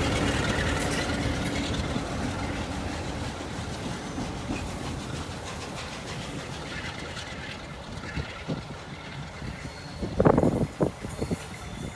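Class A1 steam locomotive 60163 Tornado running away along the track as a light engine, its rumble and rail clatter fading steadily. A few sharp knocks come about ten seconds in.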